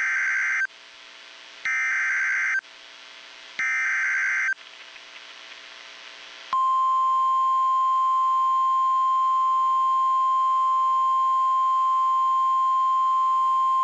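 Emergency Alert System SAME header: three bursts of warbling digital data, each about a second long with a second's gap between them. About six and a half seconds in, the steady single-pitch 1050 Hz NOAA Weather Radio alert tone begins, louder than the bursts. Together they mark the start of a new weather warning.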